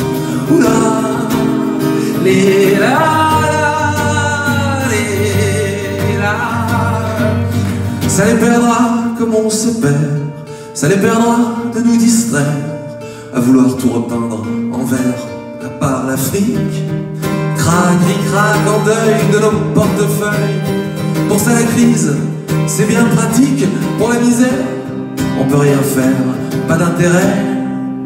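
Live acoustic song: a man singing over acoustic guitars.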